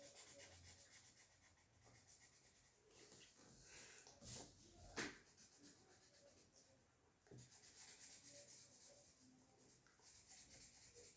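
Faint scratching of a marker pen colouring in on paper, with a couple of brief louder strokes about four and five seconds in.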